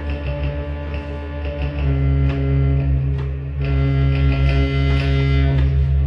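Live band music without vocals: a loud, steady low drone with held chord tones above it, swelling about two seconds in, with a few light percussive hits.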